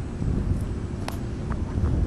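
Wind buffeting the camera microphone, a low steady rumble, with a faint click about a second in.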